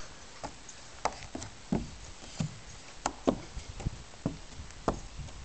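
A child's sneakers and hands thumping and knocking on a hollow plastic climbing wall as she clambers up it, in short irregular knocks about one or two a second.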